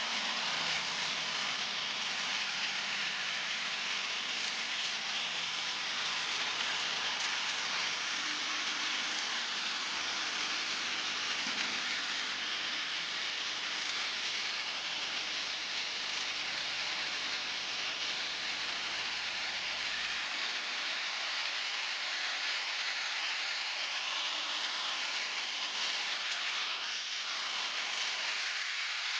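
Steady hiss of a high-pressure water spray on pavers, from a pressure washer during paver stripping and rinsing.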